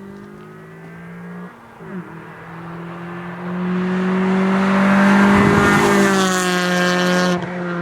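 Acura RSX base with aftermarket intake, header and exhaust, its 2.0-litre four-cylinder accelerating as the car drives past. The engine note grows louder as it approaches, with a brief break about a second and a half in. The pitch drops as it passes and moves away.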